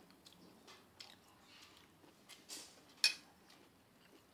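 Metal fork clinking and scraping lightly on a china plate of rice, with one sharper clink about three seconds in.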